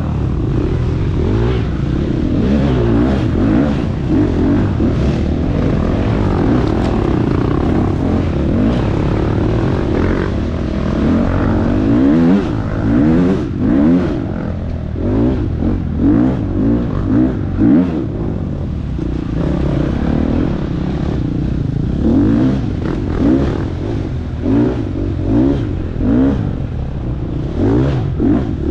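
Husqvarna FX 350 four-stroke dirt bike engine under race load, its pitch rising and falling as the throttle is worked. In the second half it gives quick, repeated bursts of revs.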